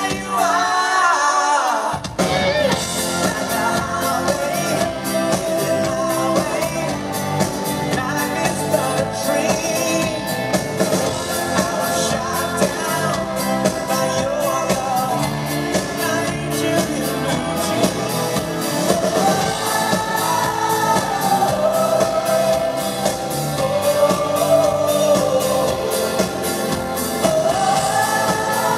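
Amplified live pop-rock band with a singer: sung vocal over acoustic guitar, then drum kit and bass guitar come in about two seconds in and the full band plays on steadily.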